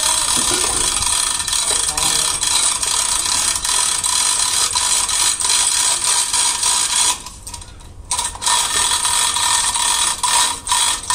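A machine running with a loud, steady hiss. It breaks off for about a second roughly two-thirds of the way through, then starts again.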